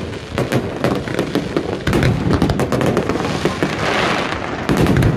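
Aerial fireworks bursting in quick succession: a dense run of sharp bangs and crackle.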